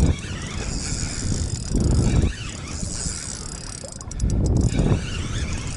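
Spinning reel being cranked while the lure is caught on rocks, with a quick run of clicks about four seconds in. Underneath are the steady rush of river water and low rumbling gusts on the microphone.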